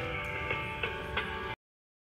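Telephone hold music heard through a phone handset, thin and phone-quality, with picked notes coming in at a steady pace. It cuts off suddenly about one and a half seconds in.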